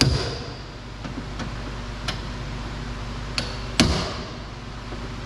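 Hammer tapping on a Phillips screwdriver seated in a door screw to break loose a screw held by thread glue: a sharp metallic strike at the start and another near four seconds in, with lighter taps between, each ringing briefly.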